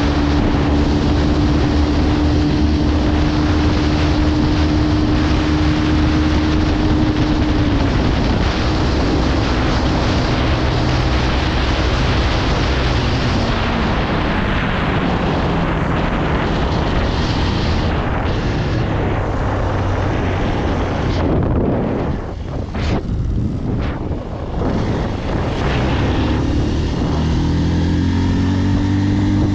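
Motorcycle engine running at speed under heavy wind rush on the microphone. The engine note holds steady, falls after several seconds, drops away briefly about two-thirds through, then climbs again near the end as the bike accelerates.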